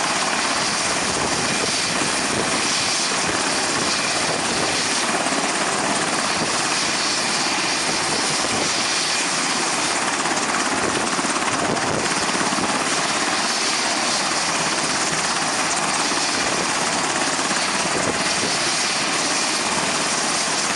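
Radio-controlled scale Black Hawk model helicopter hovering, its motor and spinning rotor blades making a steady whirring hiss with a faint steady whine underneath.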